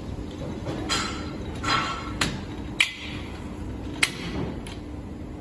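Metal folding leg frame and slide rails of a pull-out cabinet dining table clicking and clacking as the frame is swung down and set on the floor: about six sharp knocks, the sharpest near the middle and about four seconds in, over a steady low hum.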